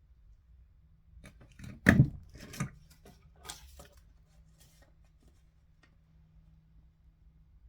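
Hands working with craft materials on a table: a cluster of sharp clicks and rustles about two seconds in, then a few fainter ones.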